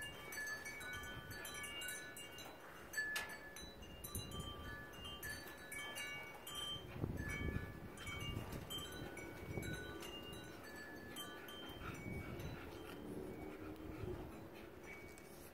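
Wind chimes tinkling irregularly in a gusty wind, with low wind rumble on the microphone.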